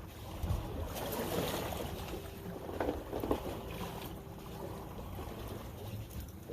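Wind and water noise around a small fishing boat, with a faint steady hum in the middle and a couple of light knocks.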